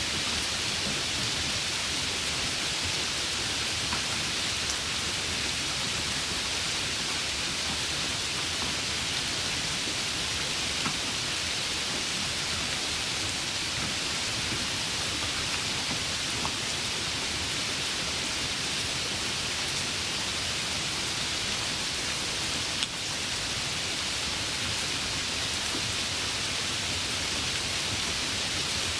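Steady rain falling: an even hiss with no breaks.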